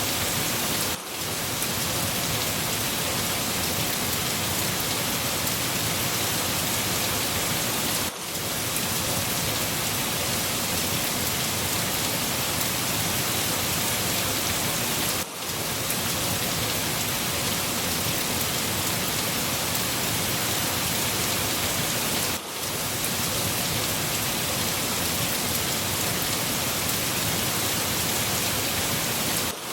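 Steady, heavy rain falling and pattering on surfaces, a dense even hiss. It briefly drops out for a moment about every seven seconds.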